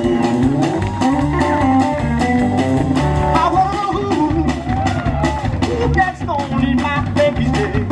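Blues band music in an instrumental stretch: a lead line sliding and bending between notes over a bass line and a steady drum beat.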